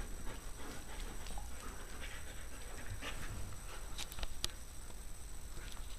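Dog panting, with a couple of sharp clicks about four seconds in.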